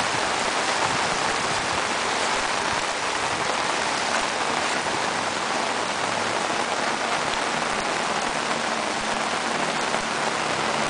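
Heavy rain pouring steadily onto a flooded street, an even hiss.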